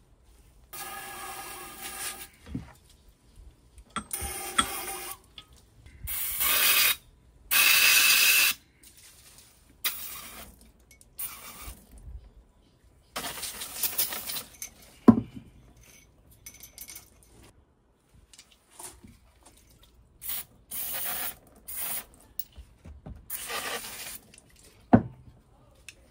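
Aerosol brake parts cleaner sprayed in repeated short hissing bursts, about a second each, degreasing scooter fork tubes and springs. Two sharp metal knocks, the louder about halfway through and another near the end.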